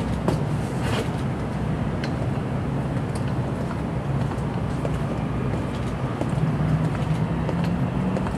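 Steady low rumble of city traffic with a motor vehicle's engine drone; the drone rises slightly in pitch in the last couple of seconds.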